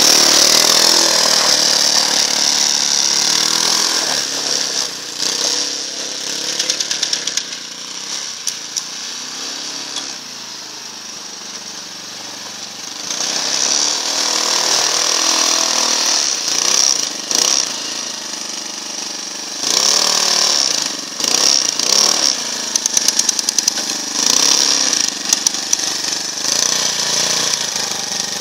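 Leshy 2x2M two-wheel-drive motorcycle's small engine running with a rattly note, revving up and down as the machine is ridden through snow. It drops back for a few seconds near the middle, then revs up and falls again several times.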